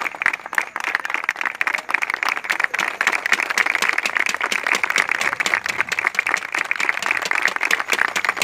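A group of people clapping their hands continuously, a dense, uneven patter of many claps.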